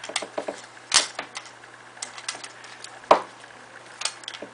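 Handling noise from unboxing a power strip and its packaging: scattered light clicks, taps and rustles, with two louder knocks, about one second in and about three seconds in.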